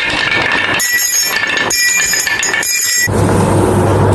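Glass marbles rolling over a wooden wave-track marble run, with bright clinks and ringing as the marbles knock together, three times in the middle. About three seconds in, the sound changes to a steady low hum with rustling.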